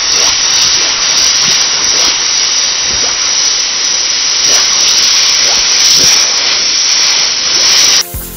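Hot steel being quenched in water, hissing and sizzling steadily with scattered small crackles. It cuts off suddenly near the end.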